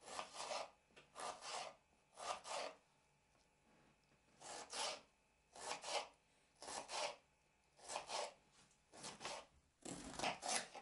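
Kitchen knife dicing a tomato on a bamboo cutting board: a faint series of short cutting strokes, about one a second, with a short pause midway.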